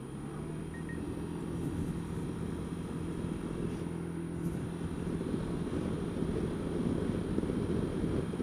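Honda Dio scooter's engine running under way, a steady drone that grows gradually louder, over low rumbling wind and road noise.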